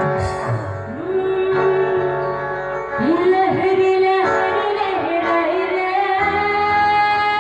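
Live amplified stage music: a female singer holding long, ornamented notes with instrumental accompaniment.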